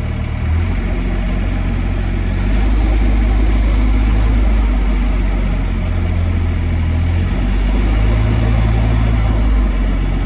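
CAEL 4-ton mini excavator's diesel engine running while the RPM control is worked, its speed stepping up about half a second in and again at about two and a half seconds, then shifting once more near the end.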